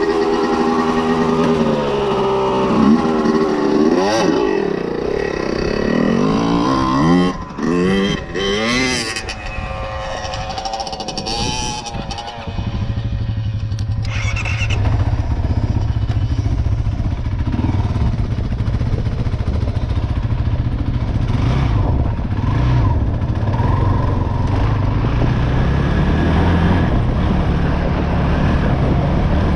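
Kawasaki KFX 450R ATV's single-cylinder four-stroke engine revving up and down, then settling to a steady idle about twelve seconds in.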